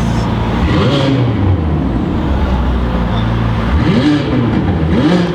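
McLaren 600LT's twin-turbo V8, pre-cat deleted with a crackles-and-pops tune, idling and blipped: a rev rising and falling about a second in, then two more short revs near the end.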